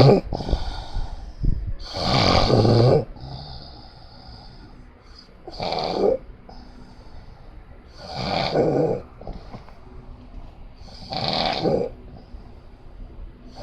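Loud, rattling snoring: four long snores about three seconds apart, with faint breathing between them.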